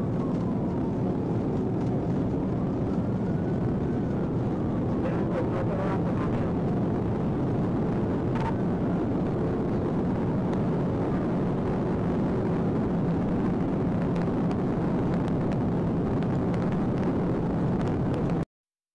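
Police car accelerating hard at highway speed, heard from inside the cabin: a steady mix of engine, tyre and wind noise, with the siren's wail rising and falling faintly over it in the first few seconds. The sound stops abruptly near the end.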